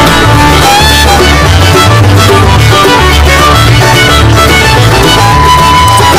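Background music with a repeating bass line under a pitched melody.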